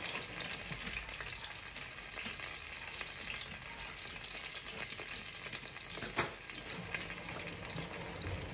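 Battered whitebait frying in hot oil in a pan, a steady sizzle with fine crackles throughout, and one short louder sound about six seconds in.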